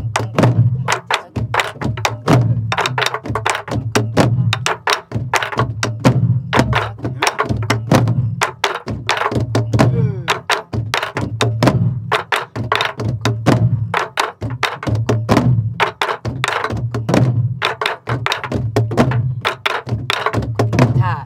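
A group of soribuk (Korean pansori barrel drums) played together in a rapid, unbroken rhythm: sharp wooden cracks of sticks striking the drum shells and rims over low booming thumps of palms and sticks on the drumheads.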